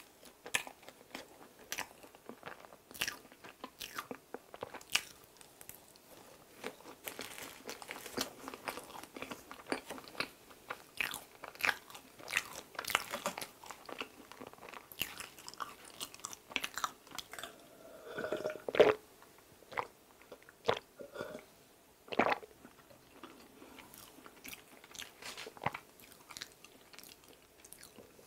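Close-miked chewing of mammoth bread, a large streusel-topped Korean bread filled with buttercream: irregular moist smacks and soft crunches of the crumbly bread in the mouth.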